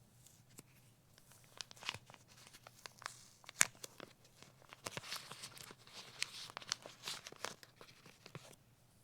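Small retail packaging being opened by hand: irregular tearing, crinkling and clicking, with one sharper snap about three and a half seconds in.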